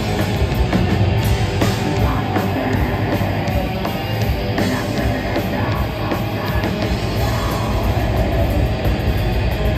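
Heavy metal band playing live: distorted electric guitars, bass and fast, busy drums in a dense, loud wall of sound, with the singer's vocals over it.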